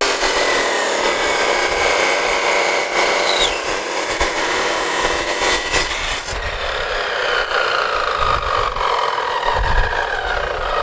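A power tool running against the workpiece, a steady grinding or sanding noise with a motor whine that shifts in pitch. The sound gets duller about six seconds in.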